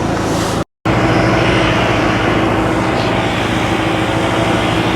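An engine running steadily at a constant speed, cut off briefly just under a second in before it continues.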